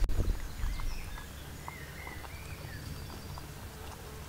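A dog eating from a bowl on the ground, with a string of small clicks and crunches from the food and a few low thumps in the first second. Birds chirp faintly in the background.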